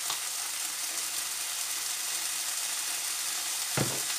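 Tomato slices sizzling steadily in a frying pan on the hob's leftover heat, while a pepper mill grinds over them. One knock about four seconds in.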